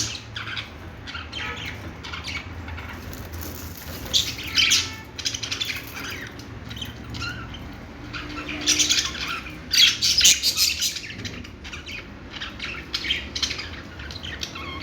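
Budgerigars chirping and chattering in quick, irregular bursts of short high calls, some louder clusters standing out.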